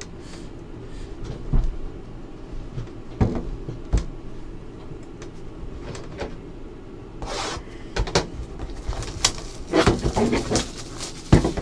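Hands handling trading card boxes and packs on a table, with scattered knocks and clicks, then plastic wrapping crackling and tearing for a few seconds near the end as a sealed football card pack is opened.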